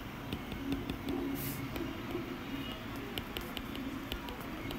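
Faint room noise with a low hum and scattered light taps of a stylus writing on an iPad screen.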